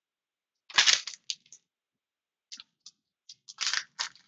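Crinkling and rustling of a foil trading-card pack being handled, in short scattered bursts: one louder crinkle a little under a second in, then a run of smaller ones.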